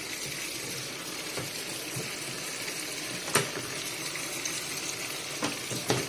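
Water pouring steadily from the inlet into the wash tub of a semi-automatic twin-tub washing machine as it fills. A sharp click about three seconds in and a couple of lighter knocks near the end.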